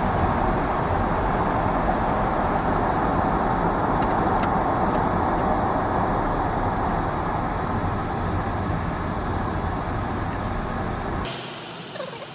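Steady tyre and engine noise of a car heard from inside the cabin while driving through a rock tunnel. About eleven seconds in it cuts off suddenly to a much quieter background.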